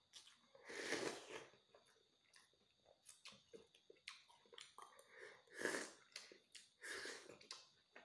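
Close-up mouth sounds of eating: three noisy slurps from a spoon, one about a second in and two near the end, with soft chewing and small wet mouth clicks between.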